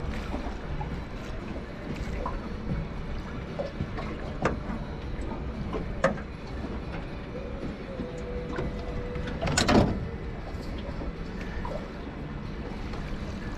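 Small fishing boat: a steady background of water and hull noise, broken by a few sharp knocks on the boat, the loudest a short clatter about ten seconds in.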